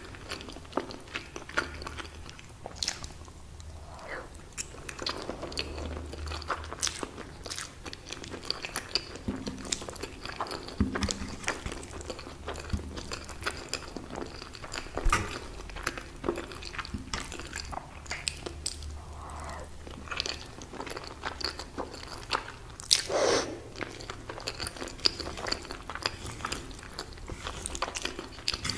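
Close-miked eating sounds of a person biting and chewing lasagna: a dense run of wet mouth clicks and smacks, with one louder mouthful about three-quarters of the way through.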